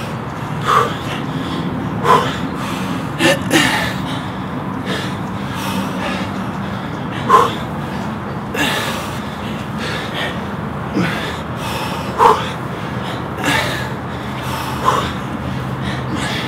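Sharp, forceful exhalations from people exercising hard, coming every second or two in time with sandbag squats and kettlebell windmills, over a steady low hum.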